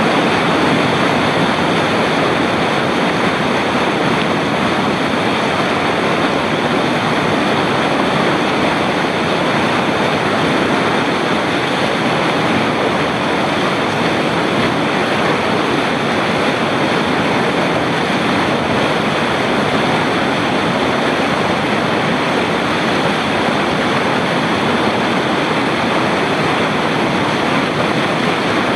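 Whitewater rapid rushing loudly and steadily as it churns over boulders, heard from right at the water's edge.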